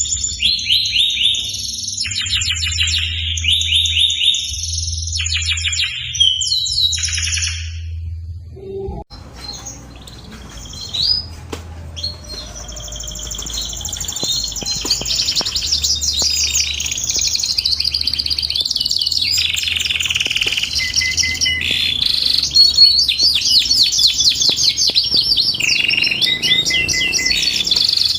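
Canary singing long rapid trills and rolling phrases, at first in separate bursts with short pauses, then after a brief dip about nine seconds in as a nearly unbroken stream of song.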